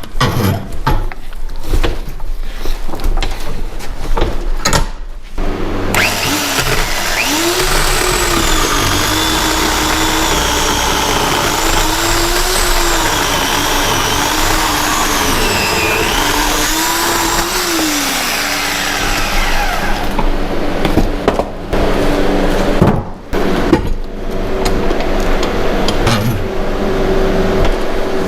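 Portland 14-inch 9-amp electric chainsaw cutting wood: knocks and clatter of the wood being handled, then about five seconds in the saw's motor starts running steadily, its pitch sagging and recovering several times as the chain bites into the log. More knocks come a few seconds from the end before the saw runs again.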